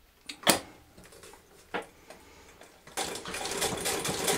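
Two sharp clicks, the first the louder, then about three seconds in a Singer 31K15 treadle sewing machine starts stitching through upholstery leather with a fast, steady mechanical clatter.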